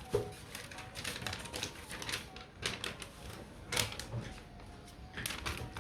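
A series of irregular light clicks and taps, with one sharper click about four seconds in.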